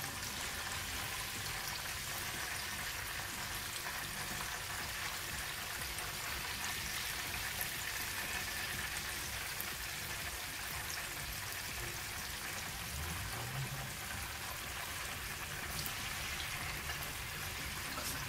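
Chicken cheese balls deep-frying in hot oil in a frying pan: a steady sizzle of bubbling oil.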